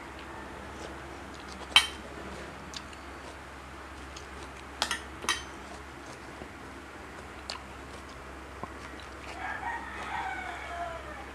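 A few sharp clinks of a metal spoon on the dishes, the loudest about two seconds in, then near the end a rooster crows once, a falling call of about two seconds.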